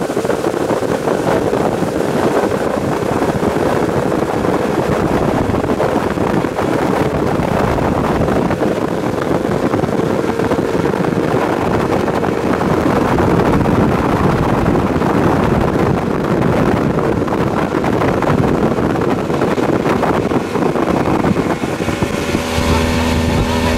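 Mercury 75 outboard motor running steadily at speed, mixed with rushing water and wind buffeting the microphone. Near the end the engine's steady hum comes through clearly above the rush.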